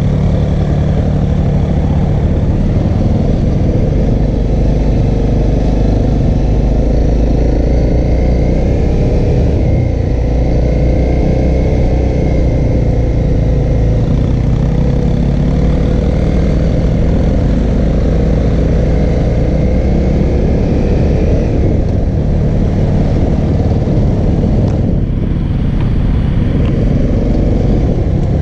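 A 2014 Honda CRF250L's single-cylinder four-stroke engine running steadily on a dirt trail, its pitch rising and falling a little with the throttle.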